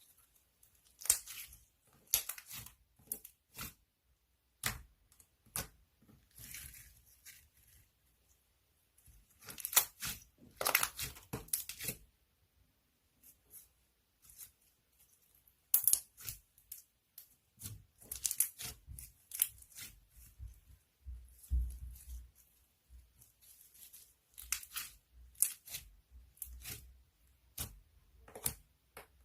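Irregular handling noises in a small room: bursts of rustling and tearing with short clicks between, starting and stopping unevenly.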